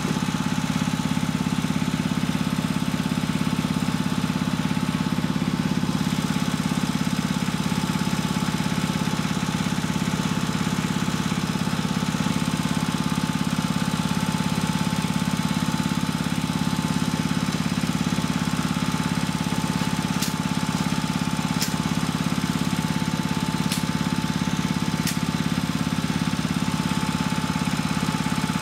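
A small engine running steadily at an even idle, with no change in speed. Four faint sharp ticks come in the last third.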